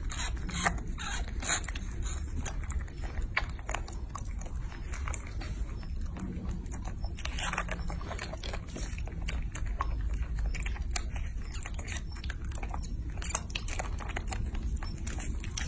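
Baby macaques sucking and smacking at the spout of a squeeze-pouch jelly drink: an irregular run of short, wet mouth clicks and smacks.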